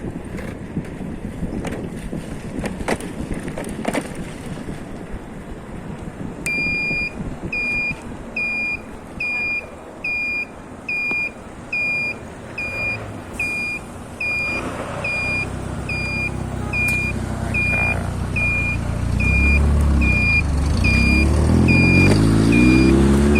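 A vehicle on a trip: rumbling road noise with a few knocks, then a high electronic warning beep that repeats a little more than once a second from about six seconds in. The engine comes up under the beeping and revs, rising and falling in pitch near the end.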